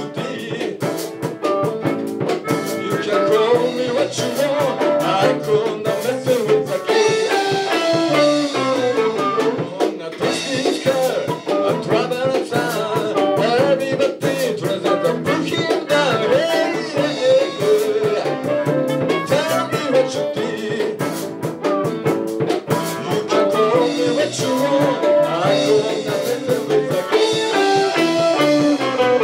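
Live band playing a song on electric guitars, bass guitar and drum kit, with a steady drum beat.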